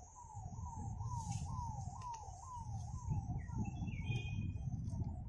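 A bird repeats a short falling note about three times a second, over a steady high insect buzz and a low rumble. About four seconds in, another bird gives a few higher chirps.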